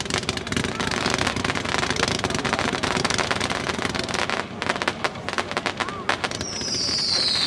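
A 220-shot zipper cake firing shot after shot in rapid succession, a dense stream of sharp reports that thins out briefly about five seconds in. Near the end a high whistle starts, falling slowly in pitch.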